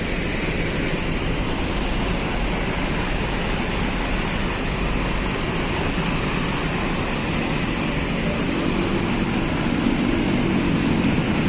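Diesel engines of intercity coaches idling: steady mechanical engine noise, with an engine tone growing stronger over the last few seconds.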